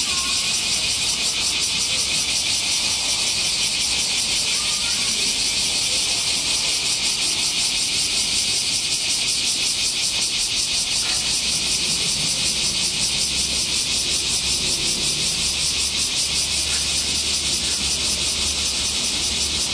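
Chorus of summer cicadas buzzing in the trees, a loud, high, rapidly pulsing drone that holds steady throughout.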